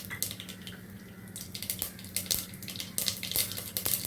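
Mustard seeds spluttering and popping in hot oil, a crackle that grows denser about halfway through.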